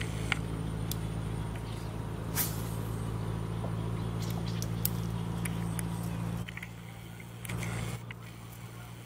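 A motor running steadily with a low hum, which drops away about six and a half seconds in and comes back briefly near the end, with a few sharp clicks scattered over it.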